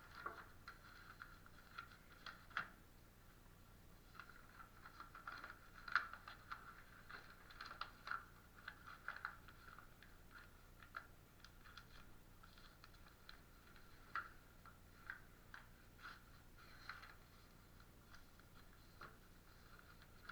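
Faint, irregular clicking and tapping: a few small knocks a second, with one louder tap about six seconds in.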